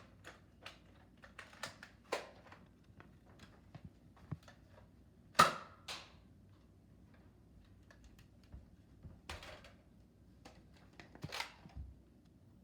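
Plastic clicks and knocks from Nerf blasters being handled, with a sharp, louder snap about five seconds in and a few weaker ones spread through.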